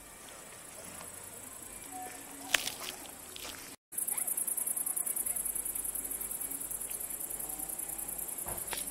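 Crickets chirring in a high, rapid pulsing trill, loud from about four seconds in. Before that there is only faint outdoor ambience, with a single sharp click about two and a half seconds in.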